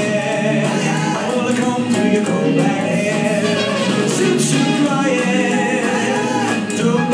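Music with a group of voices singing, in a choir-like, gospel-style sound.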